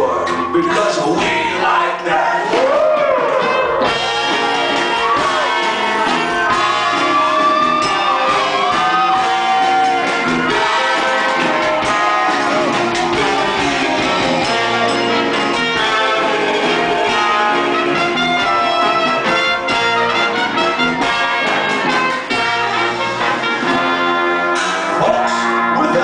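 Live band playing an instrumental passage, with a drum kit and guitar under a melody line that slides up and down in pitch.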